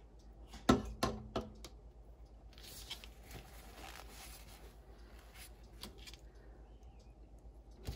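Hands handling a small plastic toy doll: a few light clicks and knocks about a second in, a soft rustle in the middle, and a couple more clicks near the end.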